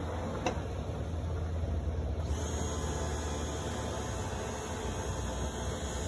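Electrolux 15 kg top-loading washing machine running mid-cycle with water in the tub: a steady low motor hum, with one short click about half a second in.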